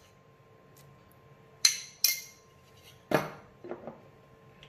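A spoon knocking against a stainless steel pot while tomato paste is dropped in: two sharp metallic clinks about a second and a half in, then a duller knock a second later.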